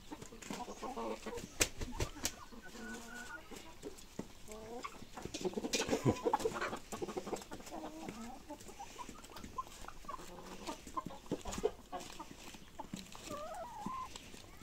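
A flock of hens clucking continuously, many short calls overlapping, with a few sharp taps and a louder, busier stretch of clucking about six seconds in.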